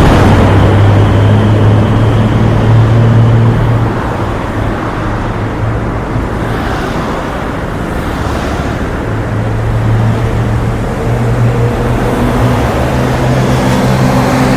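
Street traffic: a nearby motor vehicle's engine runs with a steady low hum over continuous road noise. The hum drops back after about four seconds and grows again from about ten seconds, and a couple of cars pass in between.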